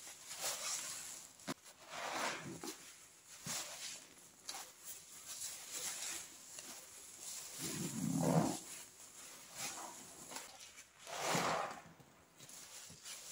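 Wet squelching and gurgling of pine toilet cleaner and suds being squeezed, in irregular bursts, the loudest about eight seconds in and another near eleven and a half seconds.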